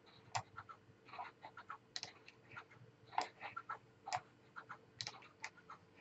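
Faint, irregular clicks and key taps from a computer mouse and keyboard, some a little louder than others.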